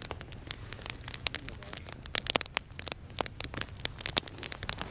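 Small stick-and-branch campfire crackling, with irregular sharp snaps and pops over a low steady hum.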